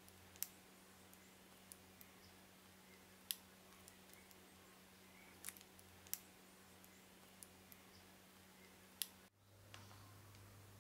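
Scattered light clicks and taps, about six in all and a few seconds apart, from hands and a utensil working over a parchment-lined baking tray while melted chocolate is drizzled onto macaron shells. A low steady hum lies under them.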